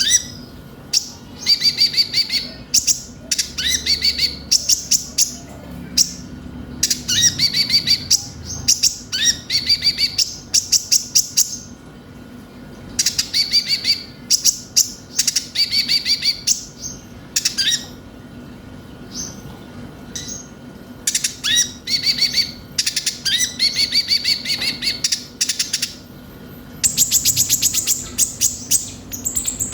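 Kolibri ninja (konin) sunbird singing: short bursts of rapid, high, sharp chirps and trills, one after another with brief pauses. A faint steady hum runs underneath.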